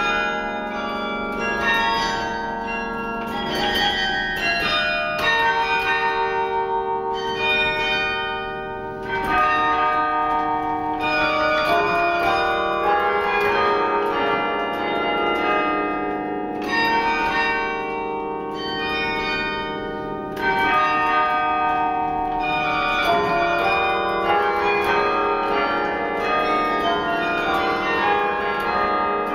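A 72-bell bronze carillon being played from its baton keyboard: a melody in many bell tones struck in quick succession, each ringing on under the next, in phrases with brief lulls.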